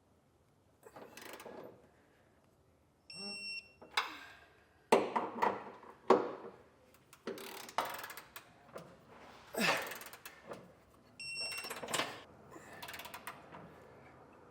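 Bolts being torqued with a wrench: a series of sharp ratcheting and tightening strokes, and twice a short high electronic beep, about three seconds in and again about eleven seconds in. The beep is the kind a digital torque wrench gives when the bolt reaches its set torque.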